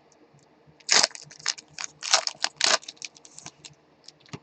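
Crinkling and rustling of a trading card pack's wrapper and cards being handled, in irregular crisp bursts, busiest in the middle.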